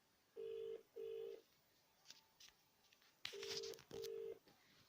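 British telephone ringback tone heard through a phone: two double rings (ring-ring, pause, ring-ring) as the outgoing call rings out, not yet answered. A few faint clicks fall between the rings.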